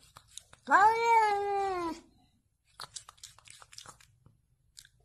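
Domestic cat giving one long meow about a second in, rising sharply at the start and then sliding slowly down. A few faint clicks follow.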